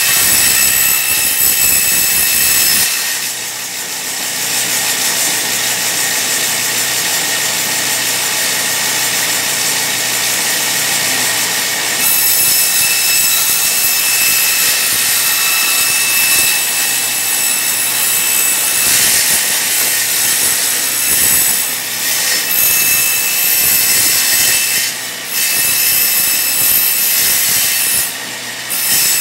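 Bench-mounted circular saw running steadily with a high whine as thin wood strips are ripped along the fence. The sound dips briefly about three seconds in and twice near the end.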